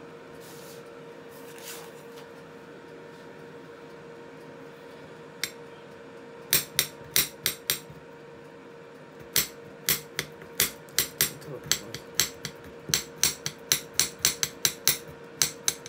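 Kitchen knife chopping on a cutting board: one knock about five seconds in, then a short run of chops, a brief pause, and a longer run at two or three chops a second. A steady hum from an air fryer runs underneath.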